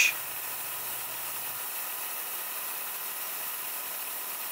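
Steady hiss of a mist-coolant nozzle blowing compressed air and lubricant onto a small carbide end mill milling aluminium.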